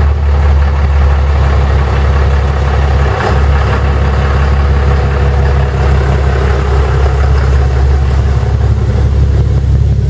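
A pickup truck's engine idling steadily, a deep low rumble.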